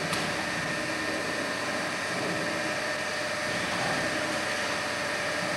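A steady mechanical hum over a constant hiss, with a faint high whine held at one pitch and a single click at the very start.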